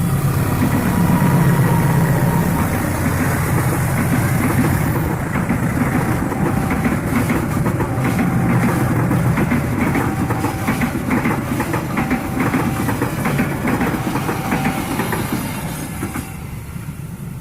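Diesel-hauled passenger train running past: the locomotive's engine at first, then the carriages' wheels clattering over rail joints in a long run of clicks, dying away near the end.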